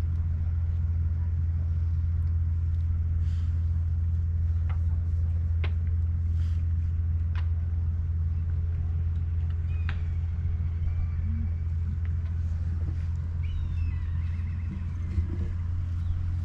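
Steady low drone of an idling engine throughout, with a kitten giving a few short, high, falling meows in the second half.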